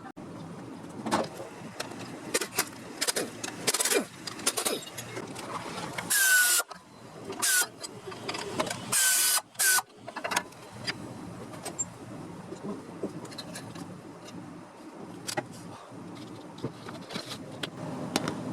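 Car repair work: scattered metal clicks and knocks from tools, with two short, loud bursts of a power tool about six and nine seconds in, each ending in a falling whine as it spins down.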